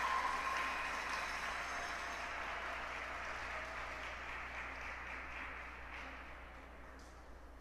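Audience applause for the skaters, dying away over several seconds.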